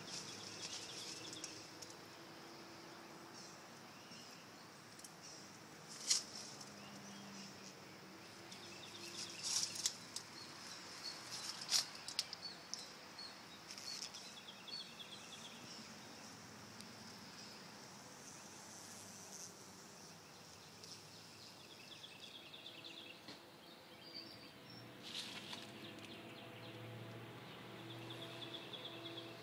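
Faint steady hum of a cluster of honey bees on an exposed comb nest, with birds chirping now and then and a few brief sharp crackles.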